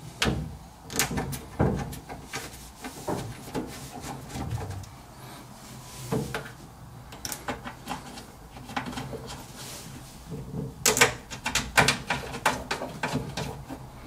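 Scattered clicks, taps and light knocks of a PC case side panel being handled and its screw worked by hand, with a quick run of sharp clicks near the end.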